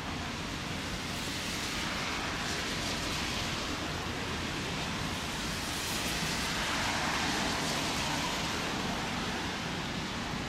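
Steady hiss of falling rain, with a low rumble underneath from an approaching EF210 electric freight locomotive and its train; it swells a little about two-thirds of the way through.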